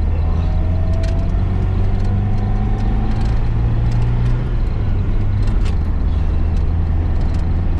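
1972 Datsun 1600's engine accelerating hard, heard from inside the car, its pitch rising for about four and a half seconds, then dropping at a shift into the next gear and pulling on steadily.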